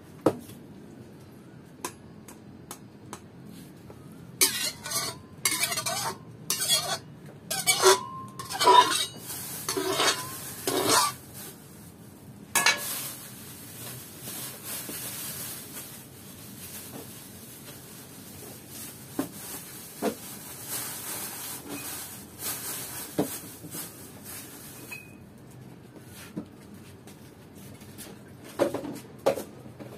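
Metal pans and utensils clinking a few times while oil heats in an electric wok, some strikes ringing briefly. Then a steady hiss for about twelve seconds that cuts off suddenly, and two more clinks near the end.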